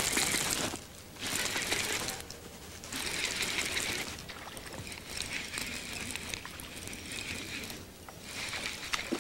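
Baitcasting reel being cranked in several short spells, its gears running with a light mechanical whir as a lure is retrieved; the longest spell comes in the second half.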